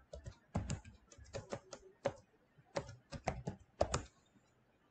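Computer keyboard typing: a run of irregular, quick keystrokes that stops about four seconds in.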